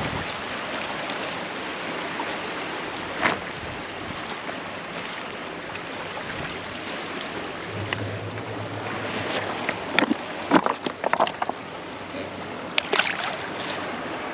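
Steady rush of churning water in a dam's tailwater outflow. Several short splashes and knocks come in the second half as a blue catfish is lowered back into the water.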